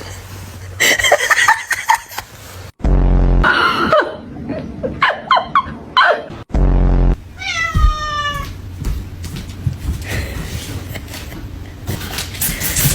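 A domestic cat meowing several times, one drawn-out call near the middle, with two heavy low thumps in between.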